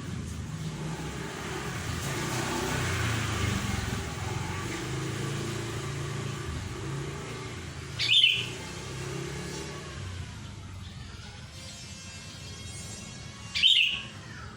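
Two short, sharp chirps from a flowerpecker, about five and a half seconds apart, over a steady low rumble.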